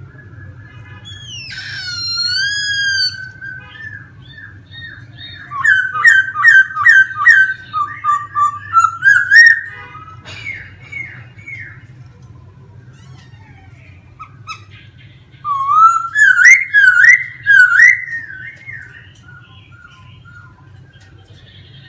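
Laughingthrush singing: a long clear whistle that slides up near the start, then two loud runs of quick, rising-and-falling whistled notes, the first about six seconds in and the second about sixteen seconds in, with softer calls between.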